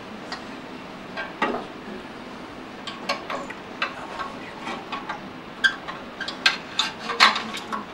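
Scattered, irregular light clinks and clicks of small hard objects such as cups and spoons, over a steady room hiss. The clicks come more often in the second half.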